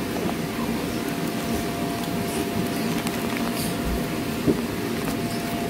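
A steady machine hum with a constant mid-pitched tone, and one short knock about four and a half seconds in.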